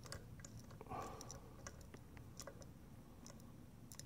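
Faint, scattered clicks and ticks as a homemade chaser bolt is turned down a rocker-arm bolt hole in an aluminum LS3 cylinder head, cleaning the threads.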